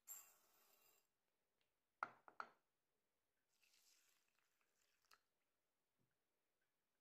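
Dry short-grain rice poured from a cup into a ceramic bowl, a short hiss of grains, followed about two seconds in by three sharp knocks, the loudest sounds. Then water is poured gently over the rice, a faint hiss, with a single click shortly after.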